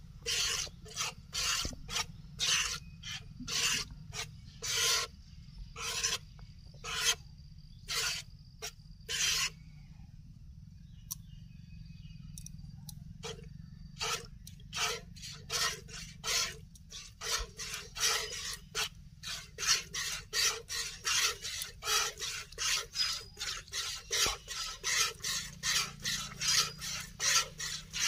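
A cow being milked by hand: streams of milk squirting into a plastic bowl in a steady rhythm of short hissing strokes, about two a second. The strokes stop for a few seconds near the middle, then come back faster, about three a second.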